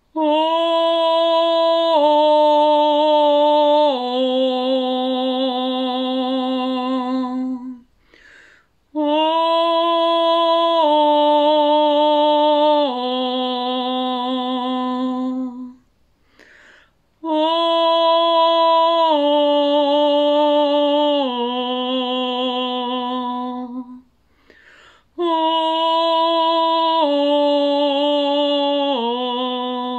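A woman singing wordless long notes on an open vowel, in four phrases of about seven seconds each. Each phrase steps down through the same three held pitches, with a breath between phrases.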